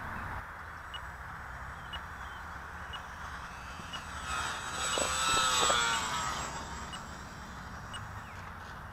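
Small electric RC biplane (E-flite UMX Pitts) flying past close by: the whine of its motor and propeller swells about four seconds in, peaks and fades again, over low wind rumble on the microphone.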